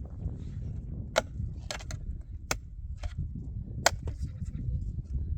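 Six sharp knocks or cracks at uneven gaps, over a steady low rumble. The loudest knocks come about a second in and near four seconds in.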